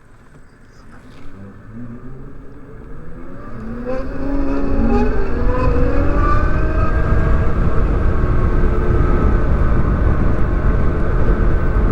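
Zero DSR electric motorcycle pulling away: a whine from its electric motor and drivetrain that rises in pitch over the first few seconds as it accelerates. From about four seconds in it is buried under loud, steady wind rush on the microphone as speed builds.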